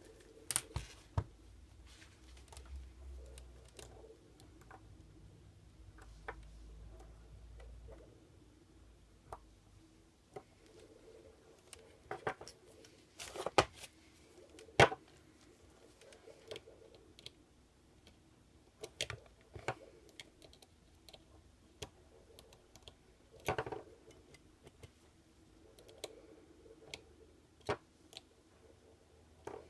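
Irregular sharp clicks and knocks of small objects being handled, a second or a few seconds apart, loudest about halfway through. A low rumble runs under the first eight seconds; no alarm signal sounds.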